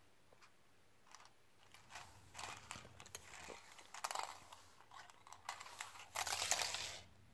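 Plastic coil-spring cat toys being nosed and pushed about on a wooden floor by a kitten: irregular rustling and scraping with fine clicks, loudest for about a second near the end.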